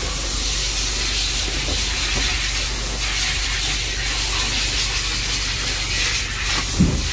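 Water hissing steadily from a hand-held hose sprayer as a dog is bathed in a stainless-steel tub.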